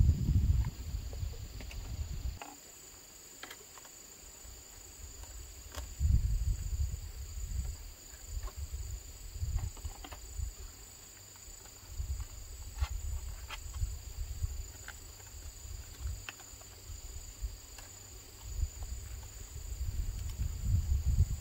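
Scattered light clicks and taps of plastic bottles being cut and handled with a knife. Under them runs a steady high-pitched insect drone, with uneven low rumbles coming and going.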